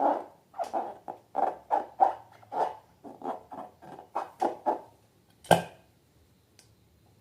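Slime being squeezed and kneaded by hand, a run of wet squelches about two to three a second that fades out, then one sharp snap about five and a half seconds in.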